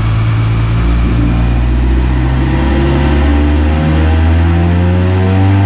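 2019 Mustang EcoBoost's turbocharged 2.3-litre four-cylinder, fitted with a Turbonetics NX2 turbo, catless downpipe and custom exhaust, running under load on a chassis dyno. The revs climb steadily, so the pitch keeps rising.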